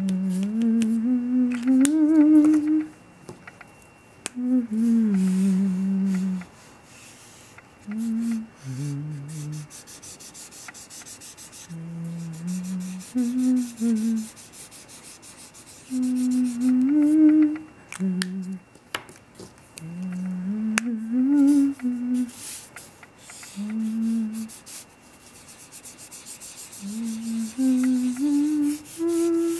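A person humming a slow tune in short phrases, stepping up and down in pitch, while a felt-tip marker rubs in quick back-and-forth strokes across paper, heard most plainly in the pauses between phrases.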